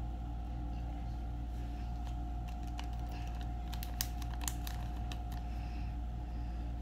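Small plastic packet of black soap colorant being handled and opened, a few sharp crinkles and clicks bunched about three to four and a half seconds in, over a steady low electrical hum.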